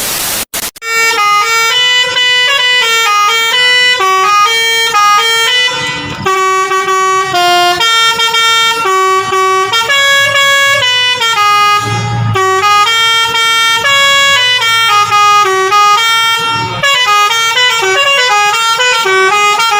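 Lorry's multi-tone 'telolet' air horn playing a tune: a loud, almost unbroken run of stepped horn notes that jump in pitch every fraction of a second. A short burst of hiss comes before it at the very start.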